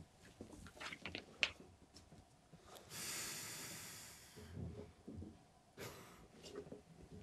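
A long breath of air blown hard over the old radio, about a second and a half, fading, followed by a shorter puff a little later, with small clicks and knocks of handling before it.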